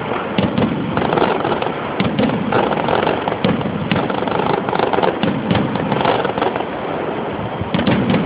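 Aerial fireworks shells bursting overhead in a dense, unbroken barrage of rapid overlapping bangs and crackle.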